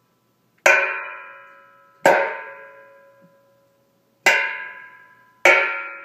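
Metal car parts hitting a chair: four sharp metallic clanks, each followed by a ringing tone that dies away over about a second.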